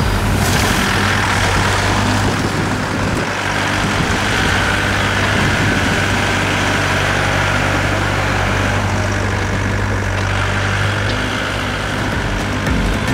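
Heavy diesel engine running steadily with an even low hum.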